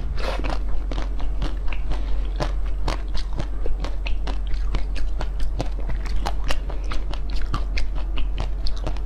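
Close-miked chewing of a crunchy frozen ice treat: dense crackling crunches, several a second, over a steady low hum.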